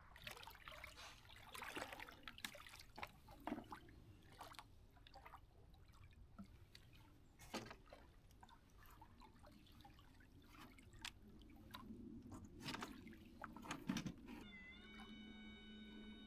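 Faint scattered knocks and clatter, then near the end a small 200-watt electric boat motor starts up and runs with a steady whine.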